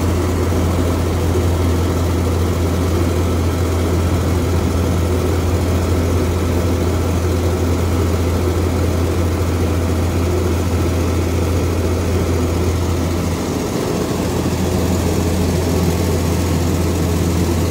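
Lorry-mounted mobile grain mill running as it bruises (rolls) barley: a loud, steady low drone with mechanical noise above it, dipping briefly about three-quarters of the way through.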